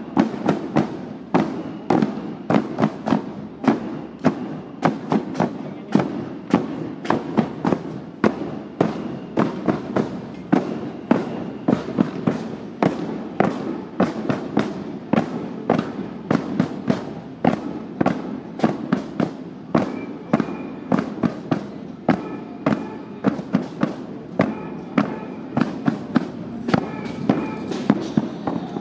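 A rapid, uneven stream of loud percussive hits, several a second, with faint high tones joining in over the last few seconds.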